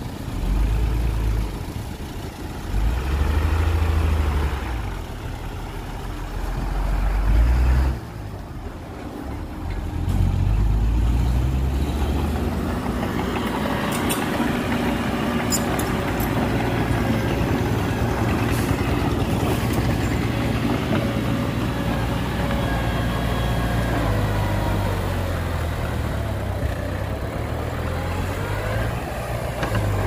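Heavy diesel engines of construction machinery running, swelling louder and easing off several times in the first ten seconds, then running steadily.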